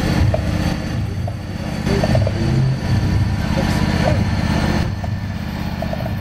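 Small engine of a John Deere riding lawn tractor running steadily at low speed while it pulls a parade float past.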